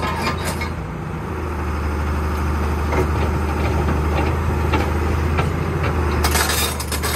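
Hitachi hydraulic excavator's diesel engine running steadily as the bucket digs, with scattered knocks and clatter of gravel and stones that grow thicker near the end.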